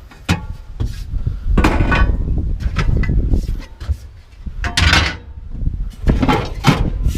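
Metal items being handled: a run of clanks and rattles, several ringing briefly with a metallic tone.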